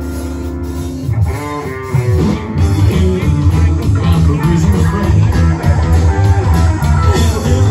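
Background music with electric guitar and bass. Held chords give way to a rhythmic, fuller band part about a second or two in.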